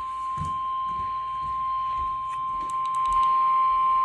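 NOAA Weather Radio 1050 Hz warning alarm tone: one steady, unbroken high tone over faint radio hiss with a few clicks. It signals that a warning broadcast is about to follow.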